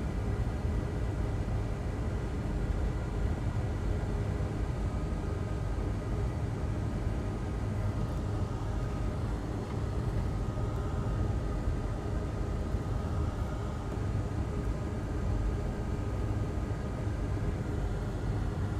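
Steady fan noise with a faint constant whine, unchanging throughout.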